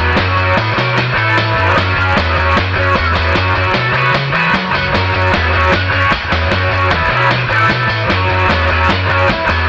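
Instrumental rock jam: guitar over a drum kit, with a bass guitar line stepping up and down underneath.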